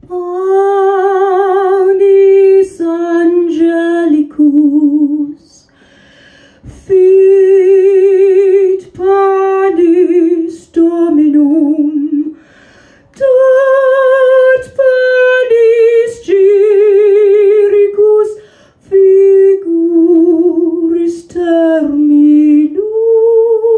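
A woman's singing voice amplified through an Audiocentre EA512 12-inch active powered speaker from a handheld Shure SM58 microphone, unaccompanied. Long held notes with vibrato, in phrases broken by short pauses.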